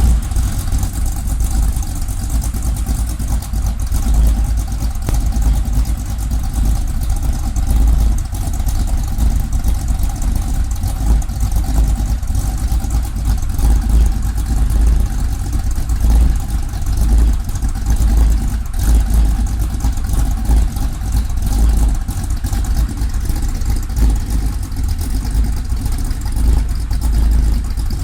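Chevrolet 383 stroker small-block V8 in a 1971 Pontiac Firebird running steadily at a constant speed, with a deep, low exhaust note.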